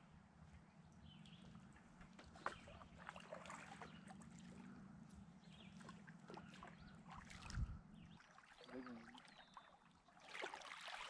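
Faint sounds of a canoe drifting on a stream: water trickling and small clicks and knocks, with one louder low knock about seven and a half seconds in. A low steady hum stops about eight seconds in, and a louder rushing noise comes in near the end.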